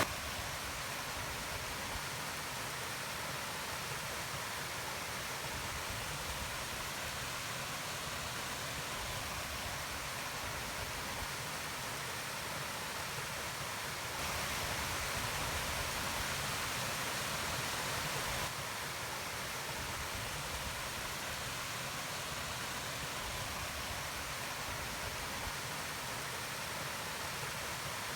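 Steady, even hiss of rainforest ambience, like distant running water or light rain, with no distinct calls or footsteps. It gets a little louder for about four seconds in the middle, stepping up and back down abruptly.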